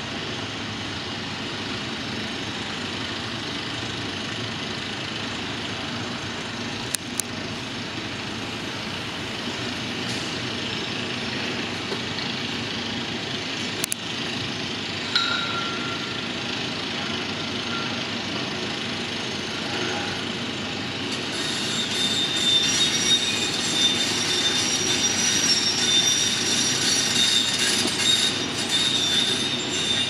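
Construction-site ambience: a steady rumble of heavy machinery and traffic, with two sharp clanks in the first half. Over the last third it grows louder, with a high, drawn-out metallic squealing from the working machines.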